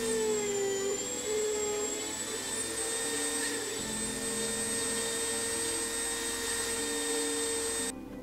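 Handheld Dremel rotary tool running at speed while carving white pine, a steady high-pitched whine whose pitch sags briefly about half a second in as the bit bites, then holds steady and cuts off just before the end.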